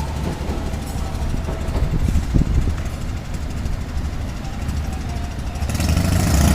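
Road traffic at a street crossing: vehicle engines running as a steady low hum, growing suddenly louder about six seconds in as a vehicle comes close.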